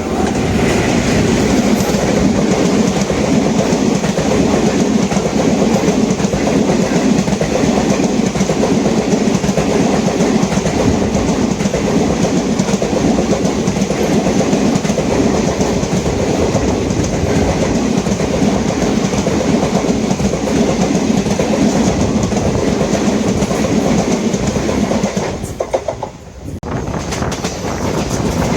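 Passenger train coach running at speed: a steady loud rumble and rattle, with wheels clattering over the rail joints. The level drops briefly about 26 seconds in, then the running noise returns. The coach is described as an unfit, rough-riding coach.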